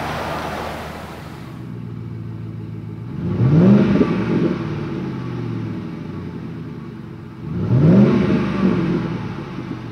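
2008 Ford F-150's 5.4L V8 idling through a Flowmaster FlowFX cat-back exhaust with a straight-through muffler, revved twice in short blips, about three seconds in and again near eight seconds, each rising then dropping back to idle. In the first second or two, road and tyre noise from the truck driving by fades away.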